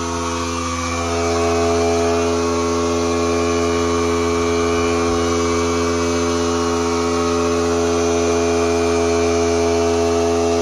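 A machine running with a steady, loud hum of several even tones, a little louder from about a second in.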